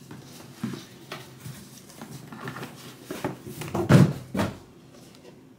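A cardboard package being opened and its contents handled: scattered rustles and knocks, the loudest a cluster of knocks about four seconds in.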